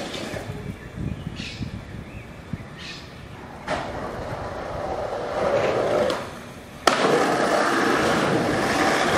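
Skateboard on concrete: a sharp clack of the board a bit under four seconds in, then wheels rolling with a swelling rumble. Two-thirds in comes a sudden hard smack, followed by a loud steady rushing noise.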